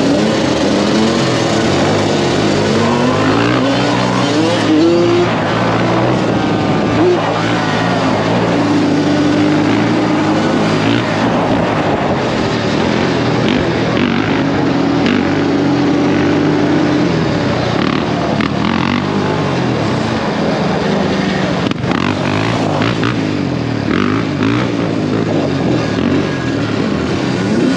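Small two-stroke dirt bike engine revving, its pitch rising and falling repeatedly, with stretches held at a steady high pitch.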